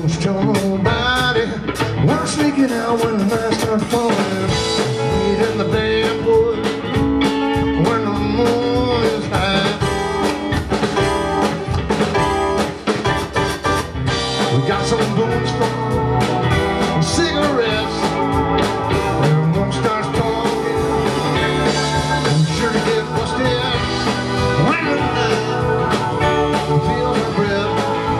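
Live band playing amplified rock with electric guitar, acoustic guitar and drum kit.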